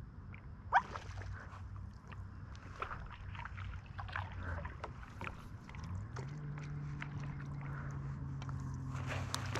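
Paddle strokes and water dripping off a stand-up paddle on calm water, with many light clicks and small splashes. There is one sharp, brief sound less than a second in. A steady low hum comes in at about six seconds and holds.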